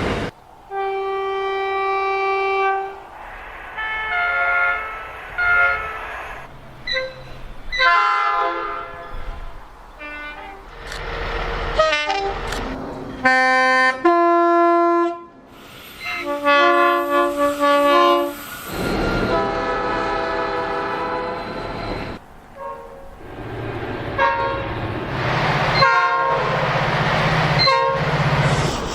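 A run of train horns from one train after another: short blasts and two-tone calls, some holding a single note and some stepping between two notes, each cut off abruptly as the next begins. The running noise and engine hum of the trains fills the gaps between the horns.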